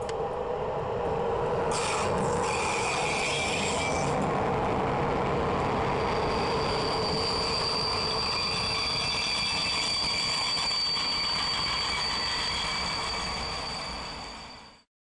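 Electric-hauled passenger train passing close by, the coaches rolling over the rails in a steady rush of wheel noise. High-pitched squeals come from the wheels, first briefly about two seconds in, then as a steady whine from about six seconds in; the sound fades out near the end.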